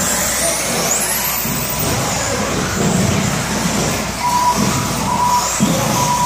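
Electric 4WD RC buggies racing on indoor carpet, their motors whining high and rising and falling in pitch as they speed up and slow down, over a low rumble of the hall. Several short beeps sound in the second half.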